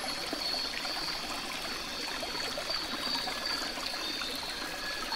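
Steady trickling of running water, with a thin high-pitched tone held through it.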